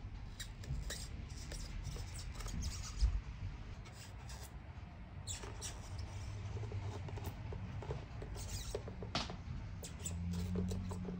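Scissors snipping away the excess red mirror-sole sheeting around the edge of a shoe's sole: an irregular scattering of small snips and scratchy cuts.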